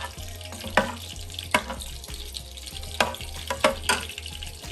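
Metal ladle stirring a meat and potato curry in a steel pot, clinking against the pot about five times over a steady hiss of the curry cooking.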